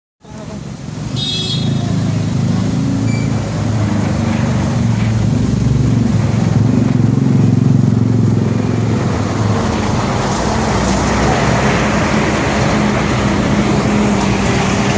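Street traffic with a vehicle engine running steadily close by, a low hum over road noise; a brief high chirp about a second in.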